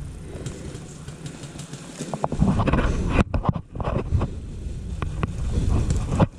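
Low rumbling noise on the body-worn camera's microphone, with scattered short clicks and rustles, growing louder about two seconds in.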